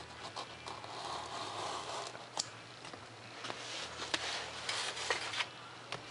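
Hobby knife drawing through foam board along a plastic ruler: two stretches of soft scraping hiss, with a few light clicks in between.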